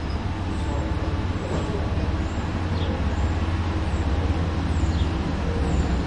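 Diesel locomotives of an approaching CSX freight train, a steady low engine rumble growing slowly louder as they come closer.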